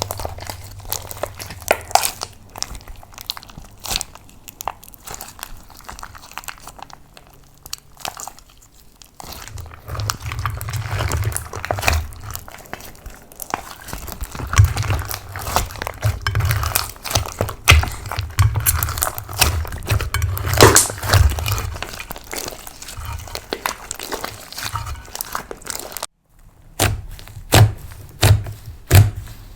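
Slime being worked by hand: a stream of sticky crackles, pops and clicks, with dull low thuds as it is pressed and folded.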